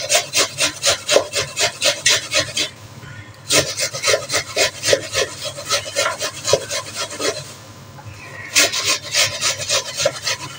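Dry onions being grated on a kitchen grater: quick rasping strokes, about four a second, in three runs with short pauses about three and eight seconds in.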